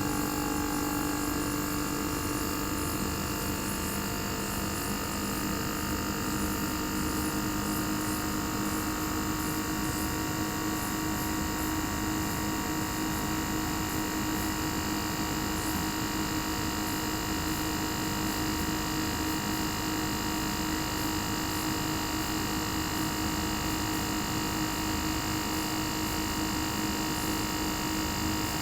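Inverter-driven single rotary compressor (Panasonic 9SS064XBB21) of a Panasonic CU-227CF air-conditioner outdoor unit, heard bare with its sound insulation opened up, running steadily at constant speed: a level hum with several steady whining tones.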